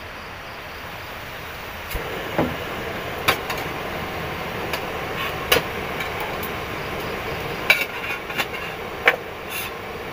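Portable camping gas stove burner hissing steadily under a pot of water, with scattered sharp clinks and knocks of metal cookware and utensils being handled.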